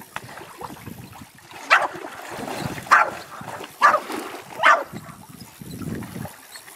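French Bulldog barking in excitement: four short, sharp barks about a second apart.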